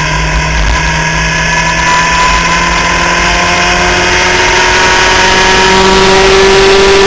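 Skip Barber formula race car engine heard from onboard, pulling under full throttle in one gear, its pitch rising slowly and steadily as the car gains speed, over a steady rush of wind noise.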